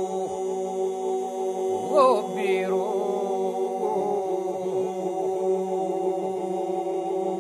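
Albanian Lab polyphonic song, unaccompanied: voices hold a steady drone (iso) on several sustained notes, and a solo voice breaks in briefly about two seconds in with a short wavering, rising call.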